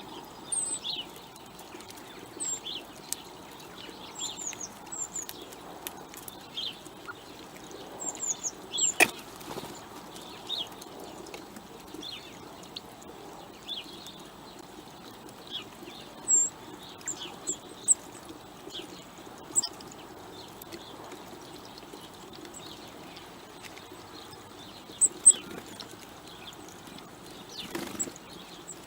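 Small songbirds giving short, high chirps on and off over a faint steady outdoor background noise, with a few sharp clicks here and there.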